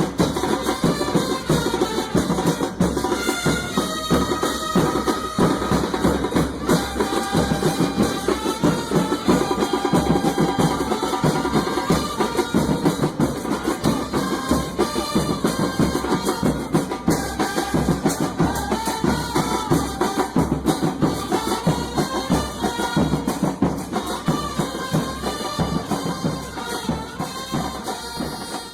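Music with busy drums and percussion under a melody, fading out near the end.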